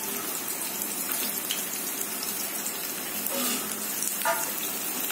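Oil sizzling steadily in a small steel pan as shallots, mustard seeds and dal fry for a tempering, with a few scattered crackles.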